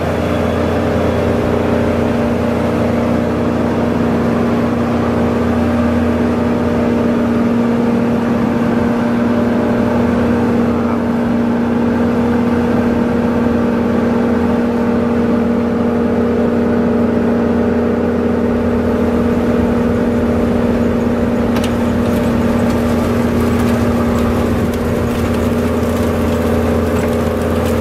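Korvan grape harvester running steadily as it picks along the row, a constant engine drone with a droning hum. From about three-quarters of the way through, light ticking and rattling sound over it.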